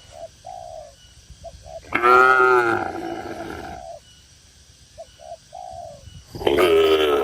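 Cattle mooing twice, a long moo about two seconds in and another starting near the end. Between the moos comes a dove's soft cooing in short grouped notes.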